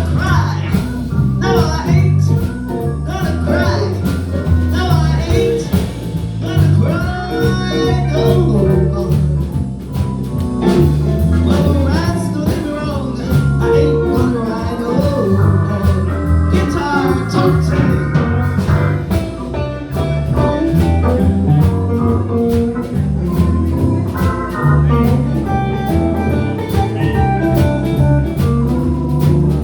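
Live blues band playing an instrumental stretch between sung lines, with a steady drum beat under the lead instruments.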